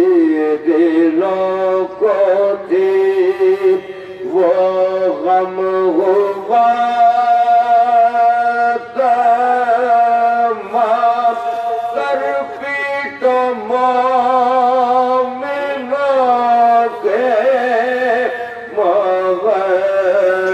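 A man's voice chanting a Shia mourning elegy, unaccompanied, through a microphone and loudspeakers. He holds long, gliding melodic notes in phrases broken by short breaths, over a low, steady held note.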